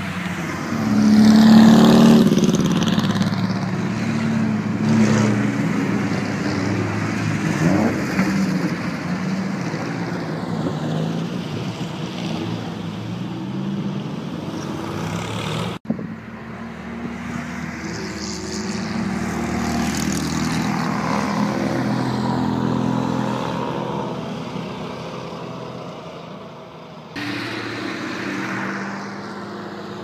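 A stream of classic cars driving past one after another, their engines running and revving as they go by. The loudest, a Mercedes-Benz 300 SL, passes about two seconds in. The sound cuts off abruptly near the middle, and then more cars pass.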